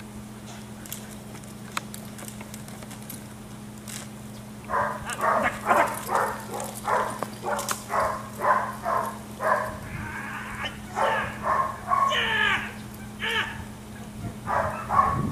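Dutch shepherd barking in a fast, even run of about three barks a second, starting about five seconds in. Near the end the barks turn higher and more uneven.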